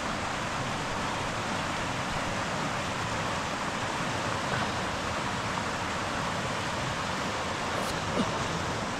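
Silver River water rushing steadily over the falls at the old railroad bridge abutments, an even hiss-like rush with no breaks.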